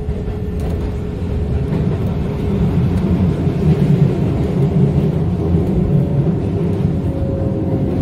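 Keisei Kanamachi Line electric train running along the track, heard from inside the cab: a steady low rumble of wheels on rails that swells midway, with a faint motor whine that drops slightly in pitch near the end as the train nears its stop.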